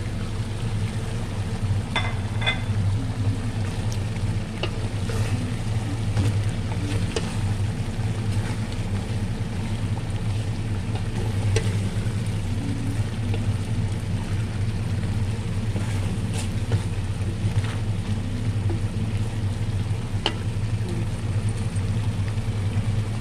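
A steady low mechanical hum, with a few light clicks and clinks of utensils against a cooking pot.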